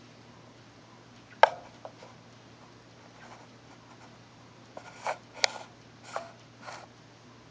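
Guinea pig making short, sharp hic sounds, about seven in all: one loud one about a second and a half in, then a cluster of them in the second half. The owner takes them for hiccups.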